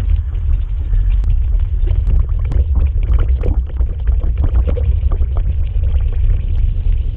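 Heavy low rumble buffeting the microphone while riding a mountain bike on rough trail, with many irregular knocks and clicks from the bike rattling over the ground.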